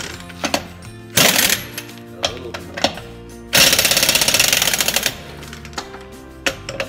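Large pneumatic impact wrench hammering on a truck's wheel nuts to loosen them, in short bursts of rapid blows: a brief burst about a second in, then a longer burst of about a second and a half in the middle, with clicks between.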